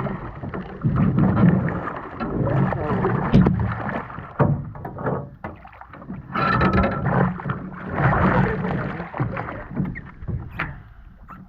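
Water splashing and sloshing around a small boat, with uneven knocks and thuds against the hull.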